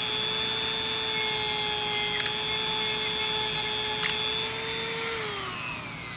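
Dremel rotary tool running a polishing bit at full speed: a steady high whine that winds down with falling pitch about five seconds in. Two brief clicks come at about two and four seconds in.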